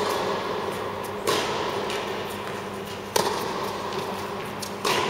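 Tennis rally: a ball struck back and forth by racket strings, four sharp hits roughly one and a half to two seconds apart, each echoing around the indoor hall.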